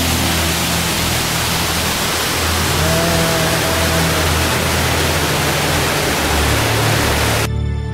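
Rushing water of a waterfall and rocky mountain creek, a steady full hiss-like rush. It cuts off suddenly about half a second before the end, and music takes over.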